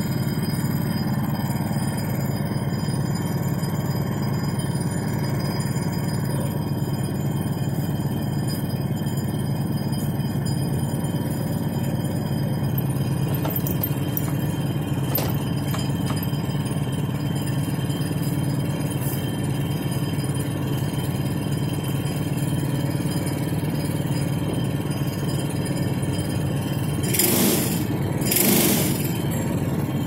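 Portable band sawmill's engine running steadily. Two short bursts of hissing noise near the end.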